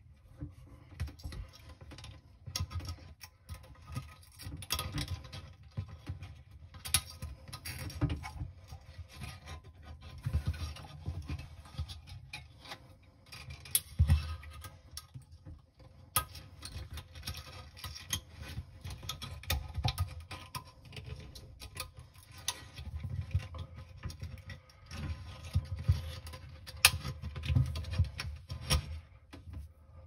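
Hand handling noise while a rubber gasket is worked around a dishwasher's plastic pump sump with a thin wire: irregular rubbing, scraping and small clicks, with dull bumps and a few louder knocks against the stainless steel tub.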